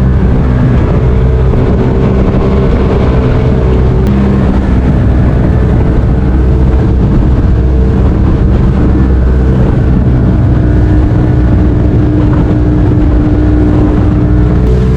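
Motorboat engine running steadily at cruising speed, a loud, even drone with a strong low hum.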